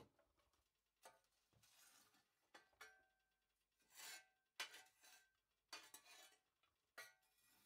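Faint, scattered scrapes and metallic clinks of a metal tool against the masonry firebox, as hot coals are raked toward the hole in the floor of the fire nest.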